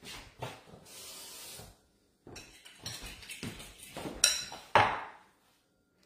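A kitchen tap runs briefly to wet a fork, then the fork and dishes clink and knock, with two louder knocks near the end.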